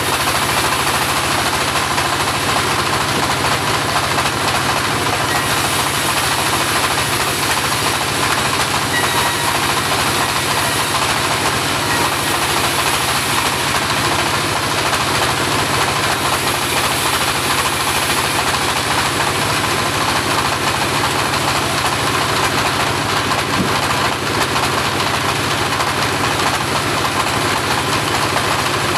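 Homemade portable bandsaw sawmill running with a steady, loud mechanical noise.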